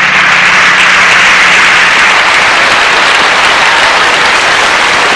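Audience applauding steadily at the end of a mariachi song, with a low held note from the band dying away in the first two seconds.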